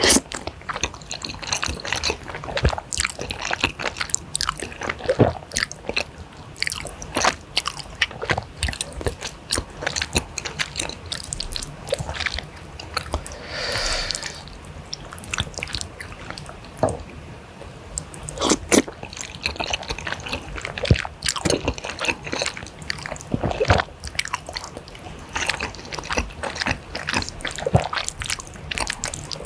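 Close-miked mouth sounds of eating spicy flat rice noodles in a saucy soup: wet chewing and lip smacking in quick, irregular clicks, with a longer slurp of noodles about halfway through.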